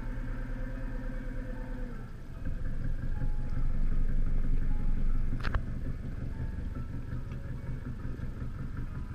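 Yamaha 150 hp outboard motor running at low speed while the boat manoeuvres. About two seconds in the throttle is opened and the motor runs louder for about three seconds, then a single sharp clunk, and it drops back to a lower, steady running.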